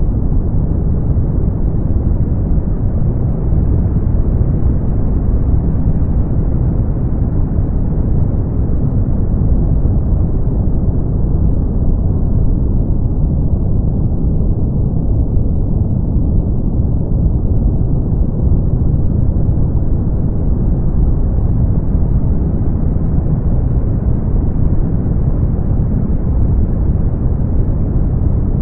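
Brown noise: a steady, deep hiss, heavy in the bass and dull at the top, with no changes.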